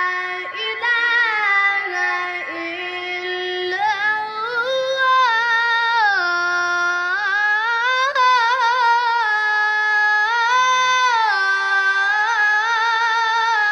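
A boy chanting the Quran in the ornamented mujawwad style, in a high voice: one long unbroken phrase of held notes that climb and fall with slow wavering turns.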